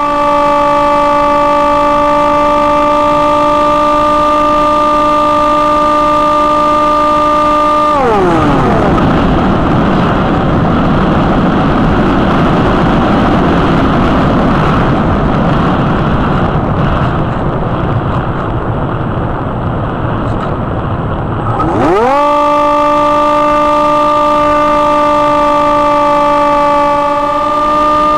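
Hawk Sky RC plane's electric motor and propeller running with a steady, high whine, loud and close as heard from a camera on the plane. About eight seconds in, the whine falls away sharply as the throttle is cut, leaving only wind rush while the plane glides. Near twenty-two seconds it rises quickly back to the same steady whine.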